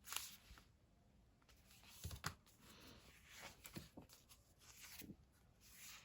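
Faint rustling and light taps of paper handling: sticker sheets and planner pages being moved and handled, with a few brief crinkles, the strongest about two seconds in.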